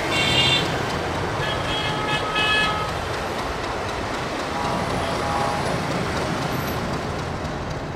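Busy city road traffic with vehicle horns honking over it: a high horn blast right at the start, a few short beeps about two seconds in, and a lower horn about five seconds in.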